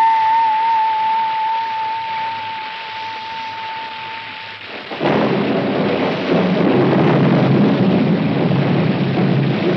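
A bell-like ringing tone fades away, then about five seconds in a clap of thunder breaks into loud, steady rain.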